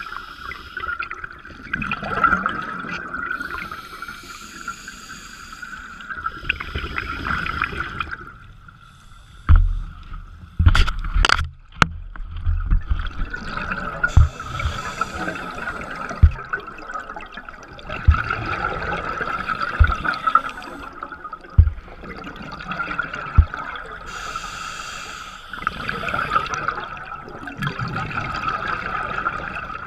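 A scuba diver's regulator breathing, heard underwater: bursts of bubbling exhaust every few seconds over a steady high hum, with several dull knocks, most of them between about ten and twelve seconds in.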